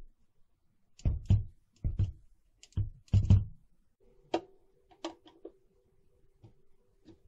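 A run of hard knocks and clicks from the mixer being handled, then a few lighter clicks of a screwdriver seating in a screw on the mixer's metal case, over a faint steady hum that begins about halfway through.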